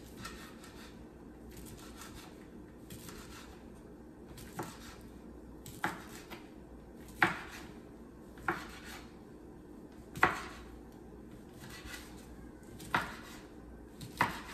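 Chef's knife slicing andouille sausage on a wooden cutting board: soft strokes as the blade draws through the sausage, and from about halfway in a sharp knock of the blade on the board with each slice, about seven in all.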